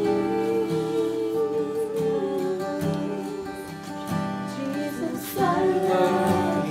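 Slow worship music led by strummed acoustic guitar, with long held notes; one note steps down about two seconds in, and the music swells near the end.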